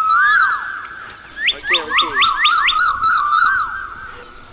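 A quick run of identical high rising chirps, about five a second, heard twice, over a lower wavering warble that fades toward the end.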